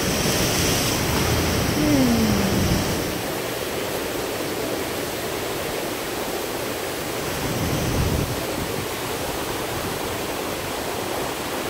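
Sea water rushing and churning against the side of a moving cruise ship, a steady, even hiss of surf and spray. It is a little louder for the first few seconds and swells briefly about eight seconds in.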